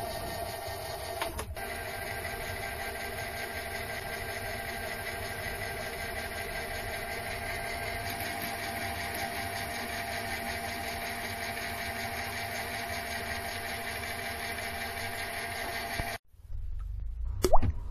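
Mini lathe running, its spindle turning a stainless steel rod while a twist drill in the tailstock chuck bores into the end: a steady machine whine with several held tones. Near the end the machine sound cuts off abruptly, leaving a low hum and a brief rising whoosh.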